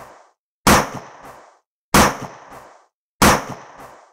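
Gunshot sound effects: the tail of one shot, then three sharp shots about a second and a quarter apart, each dying away quickly and followed by a lighter click.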